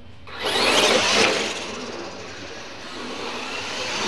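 Two radio-controlled monster trucks launching from the start line and accelerating away over a concrete floor, with motor whine and tyre noise. It starts about a third of a second in and is loudest around the first second.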